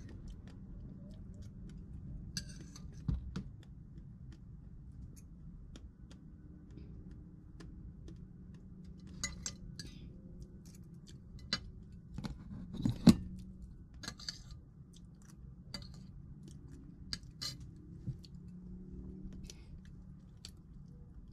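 Metal fork tapping and scraping on a ceramic plate in scattered clinks, the loudest about 13 seconds in, with chewing between them, over a steady low background rumble.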